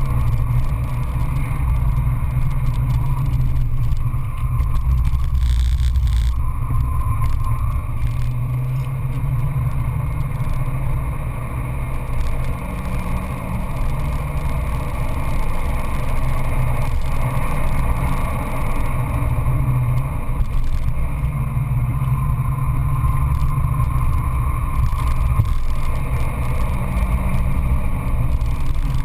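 Peugeot 206 GTI S16's four-cylinder engine running hard at speed, heard from inside the cabin together with tyre and wind noise. It eases a little for a couple of seconds about twelve seconds in, then picks up again.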